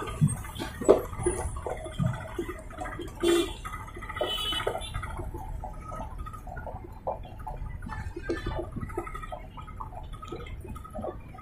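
Diesel sleeper bus pulling away over a gravel lot: a low engine rumble getting fainter, with tyres crunching on loose stones and a few sharp knocks in the first few seconds.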